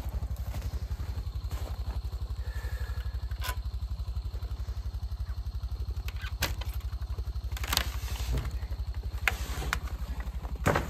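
An engine running steadily with a fast, even low putter, with a few clanks and knocks over it, the loudest near the end.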